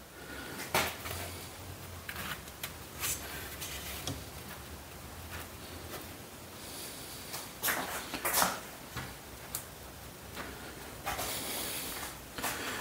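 Scattered light knocks, rubs and scrapes of a metal track frame being handled and shifted on a sheet of metal valley flashing on a wooden workbench, over a faint steady hum.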